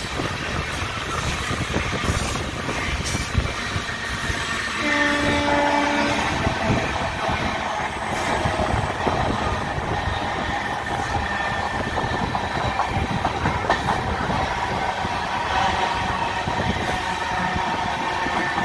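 Express passenger train running on the track, with steady wheel-and-rail rumble and clatter as it picks up speed. A single horn note sounds for about a second and a half, about five seconds in.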